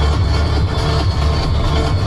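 Trance music playing, with a steady beat and heavy bass.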